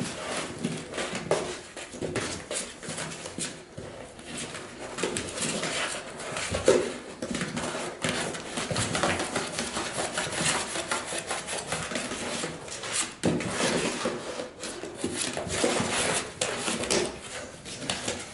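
American Eskimo puppies pawing and chewing at a cardboard box, making an irregular scratching and scraping of cardboard.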